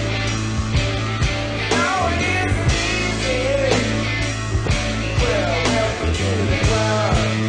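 Rock song with a sung vocal line over a steady drum beat and bass.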